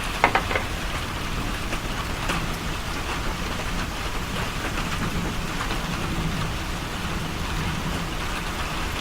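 Steady rain falling, a constant even hiss, with a few light clicks about half a second in.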